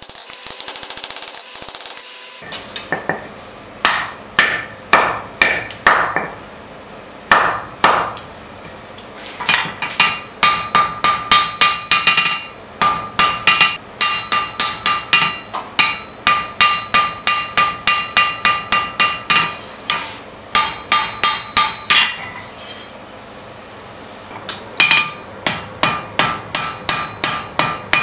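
Hand hammer striking red-hot steel on an anvil while forging a drawknife blade, each blow ringing. A brief fast rattle comes first, then a few single blows, then runs of about three blows a second with short pauses between them.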